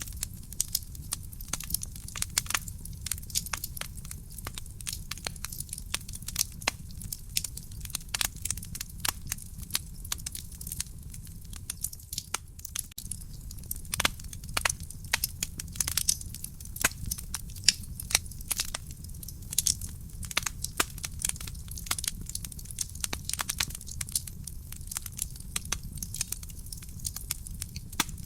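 Wood fire burning in a fireplace, crackling with many irregular sharp pops and snaps over a steady low rumble of the flames.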